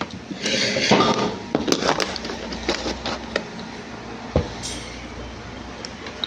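Handling noises at a dishwasher: rustling, clicks and knocks of parts and the door being worked on, busiest in the first two seconds, with a single sharp thump about four seconds in.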